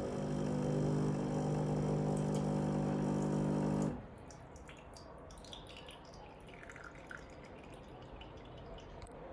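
Ninja coffee machine running with a steady hum for about four seconds, then cutting off, followed by faint dripping and trickling of liquid into the cup.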